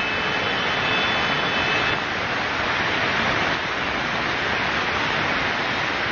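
Muddy floodwater rushing in a torrent along a street: a steady, loud rush of water.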